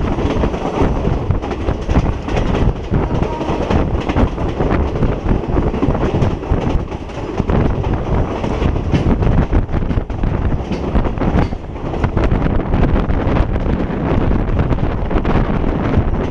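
Passenger train running steadily along the track, its wheels clacking over rail joints amid a continuous rumble, with some wind buffeting the microphone.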